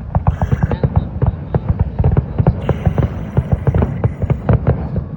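Fireworks going off in rapid, irregular succession: a continuous run of booms and cracks, several a second, heavy in the low end.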